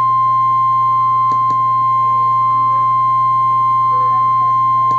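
NOAA Weather Radio warning alarm tone: a single steady high-pitched 1050 Hz tone held without a break over a low hum, the alert tone that announces a tornado warning broadcast.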